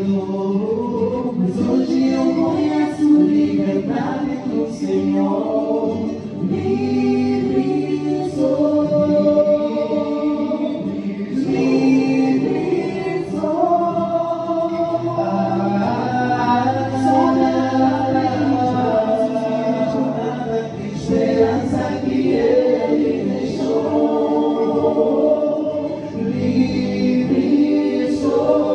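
A small group of male and female voices singing a song together in harmony, a cappella, into handheld microphones.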